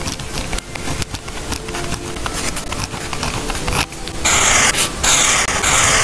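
Pen writing on paper, the nib scratching in many short strokes. About four seconds in come three louder, longer swishing strokes of a marker drawn across the paper.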